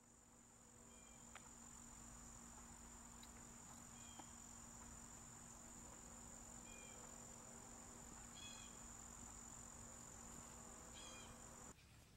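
Faint summer outdoor ambience: a steady high-pitched insect drone with a few short chirps scattered through it. The drone cuts off abruptly near the end.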